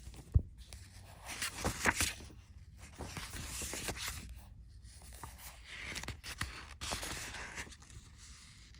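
Paper rustling and sliding as the pages of a picture book are handled and turned, with a sharp tap near the start and a few lighter ones.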